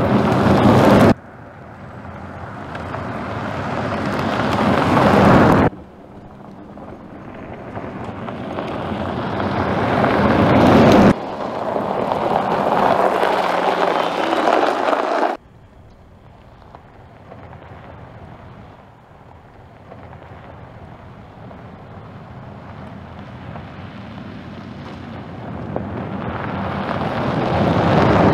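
Tyre and road noise of the all-electric Skoda Enyaq RS iV driving on a dirt and gravel track, with no engine note. A rushing noise grows louder as the car comes close, several times over, each time cutting off suddenly; after a quieter stretch it swells again near the end.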